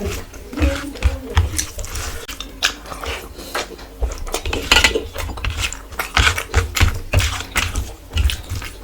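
A person chewing and eating close to the microphone: a dense run of quick, irregular mouth clicks and crunches.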